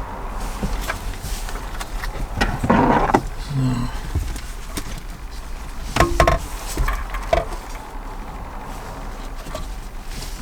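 Hands handling a car stereo head unit and its fittings while a SIM card is put in: scattered clicks and rustling, loudest about three seconds in and again about six seconds in, over a steady low hum.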